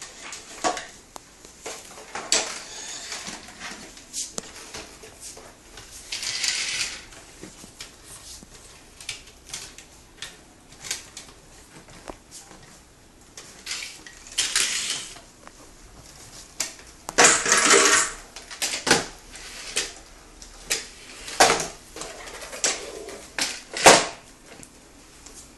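Irregular plastic knocks and clatters with a few longer scraping swishes, from a Han Kyung-hee steam mop being pushed and bumped about by hand with no motor or steam running.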